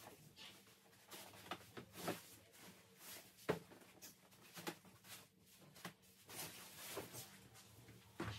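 Bedding being handled while a child's bed is made: faint rustles of the sheet with a few soft knocks, scattered irregularly.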